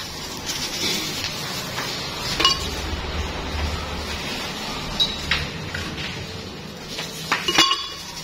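Ice cubes dropped by hand into a glass blender jar, clinking sharply against the glass and each other at scattered moments, with the loudest cluster of clinks near the end.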